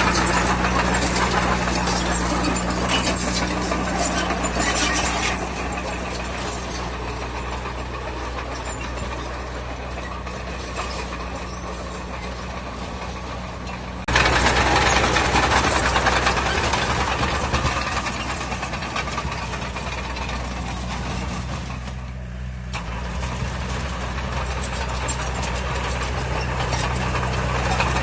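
Diesel engine of heavy earthmoving machinery running steadily, with its loudness rising and falling as it works. It jumps abruptly louder about halfway through and dips briefly near the end.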